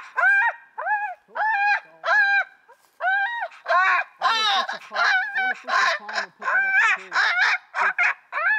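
Electronic predator caller playing a jackrabbit distress call: shrill, arching squeals repeating about twice a second. About three seconds in they turn denser and more frantic.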